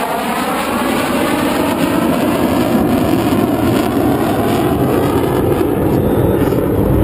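Jet engine roar of a Belgian Air Force F-16 flying its display, a steady rushing roar that slowly grows louder, with its pitch gliding early on as the jet moves across the sky.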